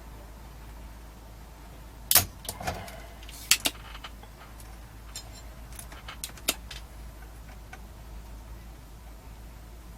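Sharp metallic clicks and clinks of small hand tools being picked up and set down during capacitor work on an amplifier circuit board. The loudest come about two seconds in and again around three and a half seconds in, with lighter taps scattered over the next few seconds.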